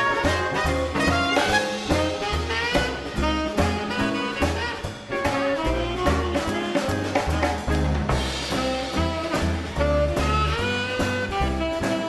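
Live swing band playing an instrumental passage: horns over a walking upright bass and drums.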